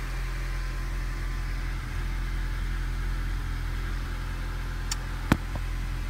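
2004 Honda Civic's D17 four-cylinder engine idling with a steady low drone, heard from inside the cabin. It is misfiring on cylinder 3, which turned out to be caused by a leaking head gasket burning coolant, and it doesn't sound good at all. A single sharp click comes about five seconds in.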